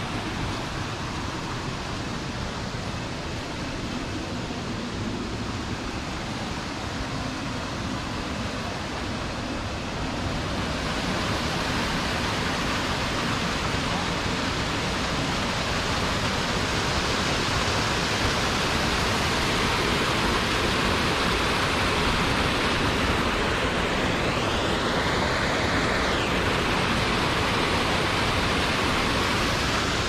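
Steady rush of a small waterfall cascading into a rock pool, growing louder about ten seconds in.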